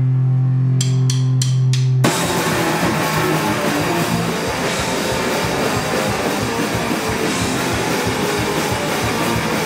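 Live rock duo of electric guitar and drum kit: a held low guitar note rings, four quick high clicks count in, and about two seconds in guitar and drums come in together loud and fast, playing on.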